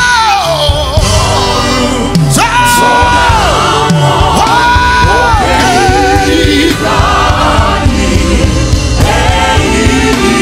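Live gospel praise music: a male lead singer belting three long held notes in the first six seconds, with backing vocals over the band.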